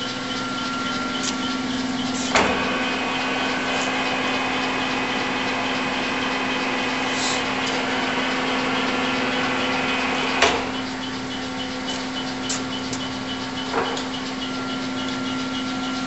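Clausing Colchester 21-inch lathe's geared headstock running with a steady gear whine. Three sharp clunks, the first two the loudest, come as the selector levers are shifted, and the whine's higher tones change after the clunks.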